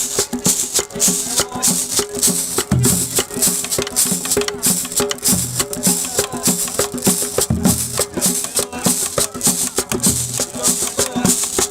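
Music with a fast, dense shaker rhythm over a steady held note, and a low bass note about every two and a half seconds.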